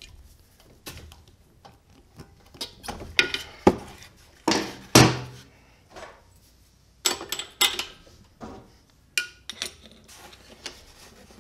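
Metal hand tools clinking and knocking against a small Honda mower engine as the spark plug boot is pulled off and the spark plug is worked loose. The clinks are irregular, with the loudest knocks about four to five seconds in and another cluster near eight seconds.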